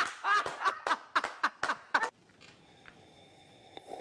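A woman giggling in quick bursts for about two seconds, then quiet. Near the end a rough, breathy sucking sound begins as she draws on her glass of tea.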